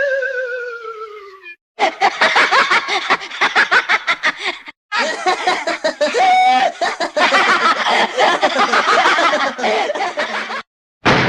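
A falling, warbling whistle-like tone fades out in the first second and a half. Then come two long bursts of rapid, choppy cartoon snickering laughter, and a sudden bang at the very end.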